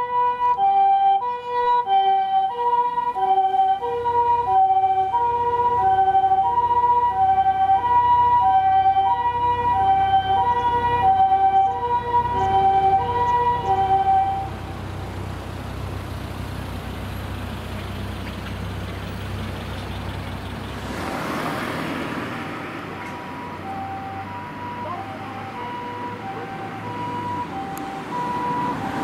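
Japanese ambulance two-tone siren, the alternating high-low "pee-po" call, with engine rumble underneath. It is loud for about the first half, then drops away abruptly. Later it comes back faintly, with the noise of a passing vehicle between.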